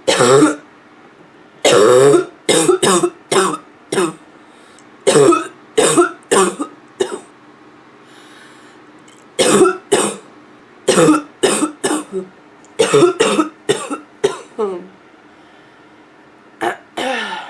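A person's hoarse, barking cough, coming in fits of two to six coughs in quick succession with pauses of one to three seconds between fits.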